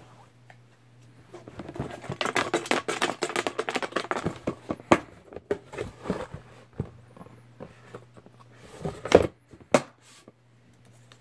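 Paper raffle slips rustling and crinkling as a hand stirs through them in a container, dense for a few seconds and then tapering to a few sharp crinkles as a slip is picked out.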